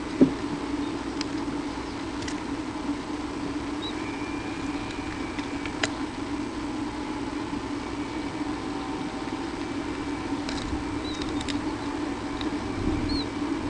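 A steady low hum with one sharp knock just after the start, a few faint clicks, and several faint, short high chirps scattered through.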